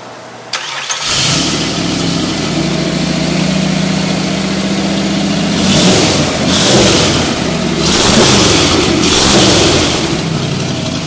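Street rod's V8 engine with tube headers and side exhaust pipes starting: a brief crank, catching about a second in, then idling steadily. From about six seconds in it is revved four times, each rev rising and falling, before settling back toward idle.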